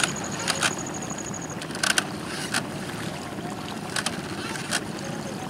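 Steady low outdoor noise with sharp knocks every second or so, some in quick pairs, and a faint high whine that comes and goes.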